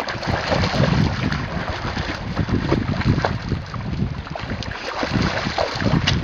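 Wind buffeting the camera microphone in gusts, over the rush of shallow river water.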